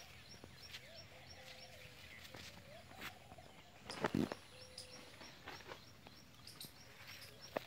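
Faint rural birdsong: one bird repeats a short high chirp about three times a second while other birds give lower, arching whistled calls. A single louder thump comes about four seconds in.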